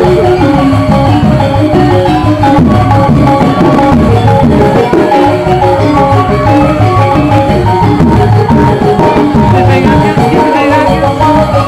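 Balinese gamelan music accompanying a dance, with quick runs of short struck pitched notes over steady drumming.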